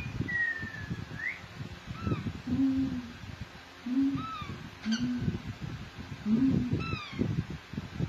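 Pet parakeets chirping with short calls that fall in pitch, among four short low hoot-like calls and the rustle of handling.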